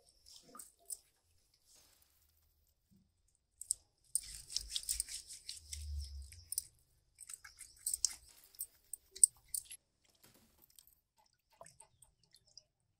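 Irregular crunching and scraping from a goat's head and legs being cleaned, in bursts of crisp crackles between about four and ten seconds in, with a dull low thud near the middle.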